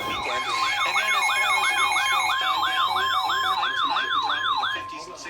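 Electronic alert tone from a broadcast warning: a siren-like warble sweeping up and down about three times a second over a steady high tone. It stops shortly before the end.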